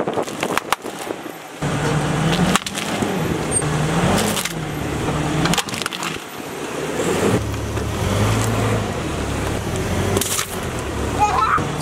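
A car tyre rolling slowly over packaged snacks and brittle items on asphalt, crunching and cracking them in several separate crushes, with sharp cracks near the start and again a few times later. A car engine runs low underneath from about a second and a half in.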